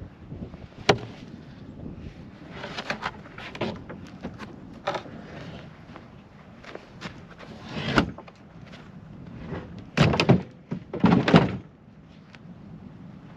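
Wooden plank panel knocked and thumped against sled and gear as it is lifted and loaded, with scattered knocks and a few heavier thumps, the loudest about eight seconds in and again around ten to eleven seconds in.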